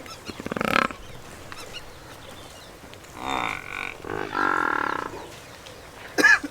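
Water buffalo calling: a short rattling grunt under a second in, then two longer, drawn-out calls about three and four and a half seconds in.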